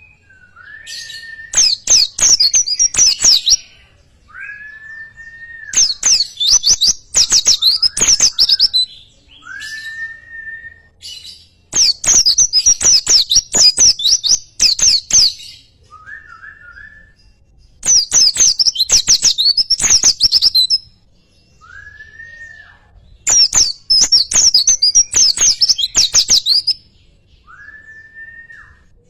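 Birdsong: about five loud bursts of rapid, high chirping notes, each a few seconds long and coming every five to six seconds. Between the bursts a short, lower whistled note sounds.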